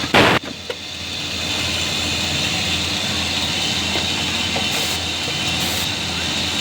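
Fully automatic rivet button attaching machine (NISSIN NS-9815S-509CD) making one loud press stroke right at the start, then running with a steady hum and hiss.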